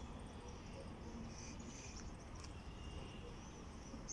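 Faint outdoor background of insects chirping in a high, wavering band, over a steady low rumble.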